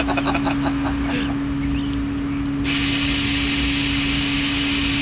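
A steady machine hum, typical of a carpet-cleaning truck mount running. A little over halfway through, water suddenly starts spraying from a makeshift shower head fed with heated water from the truck mount, a loud even hiss that holds on.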